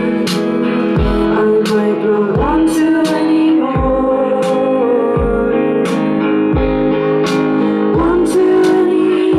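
Live band playing a slow song: electric guitar and sustained keyboard chords over a steady beat with a low kick about once a second, and a woman singing.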